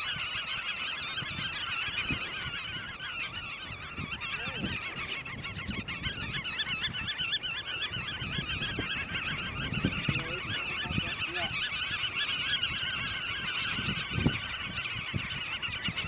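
A large flock of birds calling continuously, many overlapping high calls at once in an unbroken chorus, with a few low bumps underneath.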